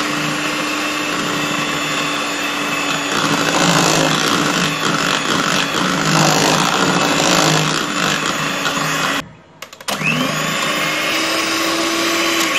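Electric hand mixer running steadily, its beaters whirring through thick chocolate cake batter. It switches off about nine seconds in and starts again a moment later with a rising whine.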